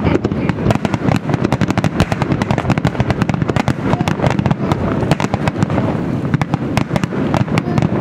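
Aerial fireworks bursting in a dense, continuous barrage: rapid cracks and bangs many times a second over a deep, steady rumble.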